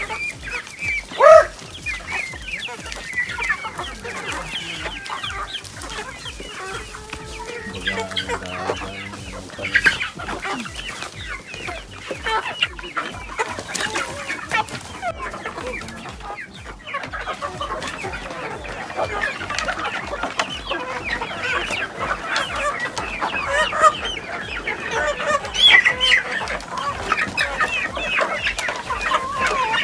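A flock of chickens clucking and calling over one another, with one loud call about a second in.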